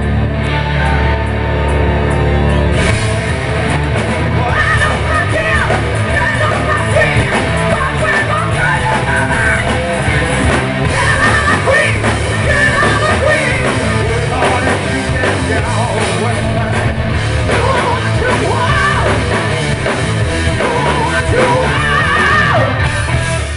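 Live rock band playing loud through a festival PA, with electric guitars, drums and keyboard. Heavy held chords give way about three seconds in to a fast, dense section with yelled vocals, and the song breaks off at the very end.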